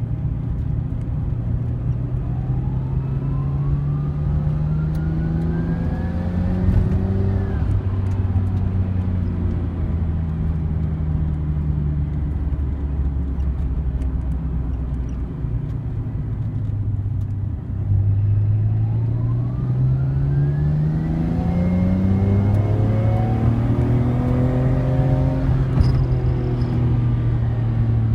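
Nissan Skyline GT-R BNR34's RB26DETT twin-turbo straight-six; its engine speed rises and falls twice. Each time a thin high whine climbs with the revs and then stops: the abnormal noise of turbochargers worn by 250,000 km.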